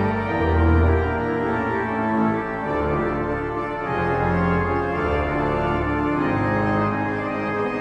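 Organ music playing sustained chords over a moving bass line.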